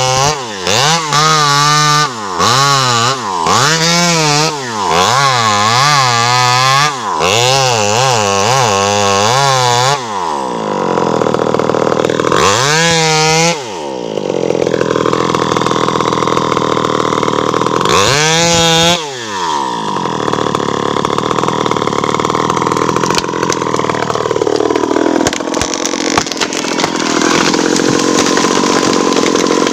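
Home-assembled 52cc two-stroke chainsaw revved in quick blips for about the first ten seconds, then held at high speed, cutting, with its pitch dropping and climbing back twice.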